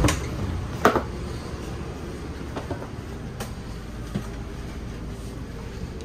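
Steady hum of an RV's rooftop air conditioners running, with a few scattered knocks and clicks. The loudest come right at the start and just before a second in.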